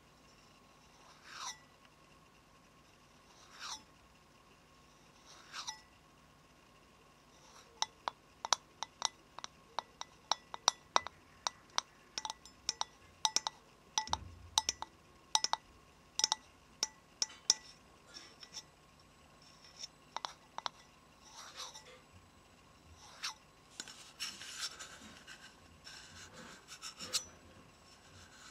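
Fingernails tapping quickly and sharply on a hard object, several taps a second, after a few slow scratching strokes about two seconds apart; a rustle near the end.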